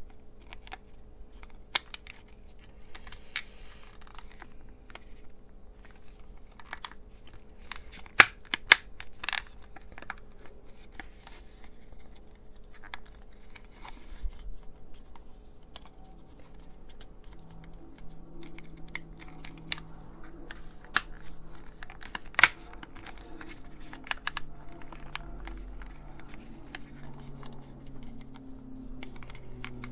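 Hands handling and pressing together the plastic case of a small pocket radio: scattered plastic clicks and taps, with a few sharper snaps about eight seconds in and again past twenty seconds. The case's old plastic clips are brittle and breaking.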